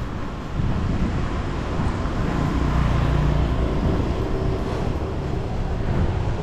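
Street traffic noise: a motor vehicle's engine running past, getting louder about half a second in, mixed with low wind rumble on the microphone.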